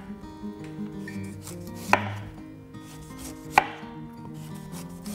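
Chef's knife cutting the tough skin off a celeriac on a wooden cutting board: two sharp cuts, about two seconds in and again about three and a half seconds in, with fainter knife sounds between.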